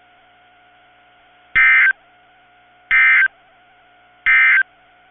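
Emergency Alert System end-of-message data bursts from NOAA Weather Radio: three short, harsh two-tone digital squawks about 1.3 seconds apart, signalling the end of the severe thunderstorm warning.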